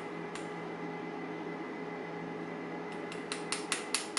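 Small metal clicks and ticks as lock pins and a small tool are handled while a pin-tumbler lock is taken apart. There is one click at the start, then a quick run of about eight clicks near the end, over a steady low background hum.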